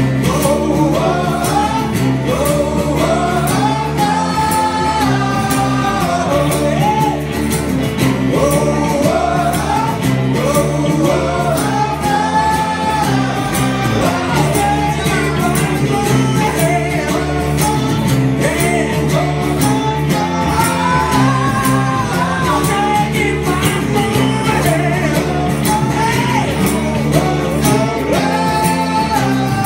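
Live acoustic rock song: a man sings lead over a strummed acoustic guitar, with a second guitar playing along.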